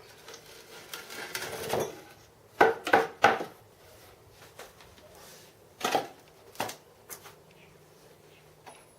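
A fresh metal casting being freed from its sand mould: a couple of seconds of rustling and scraping, then three quick sharp knocks, and two more knocks a few seconds later.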